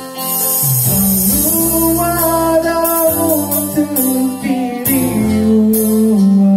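A small band playing a song live: a man singing into a microphone over an electronic keyboard and electric guitar, with held melody notes and steady bass notes. The music dips briefly at the very start, then comes back in.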